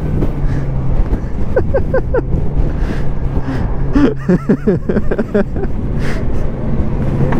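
Wind and road noise while riding a Zero SR/F electric motorcycle, with only a low steady hum underneath and no engine sound. A few short vocal sounds come about a second and a half in and again around four seconds in.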